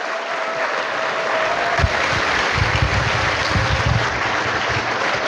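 Large audience of students applauding the lecturers. The clapping swells over the first second and then holds steady.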